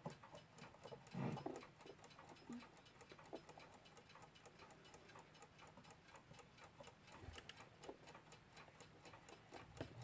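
Westclox Big Ben Style 1 alarm clock movement ticking faintly and evenly, several ticks a second, its balance wheel freshly oiled and running. A few soft handling knocks sit under the ticking.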